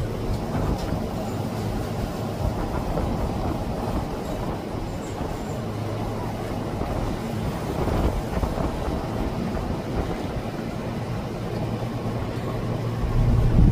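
Car driving: steady road rumble and tyre noise with a low engine hum.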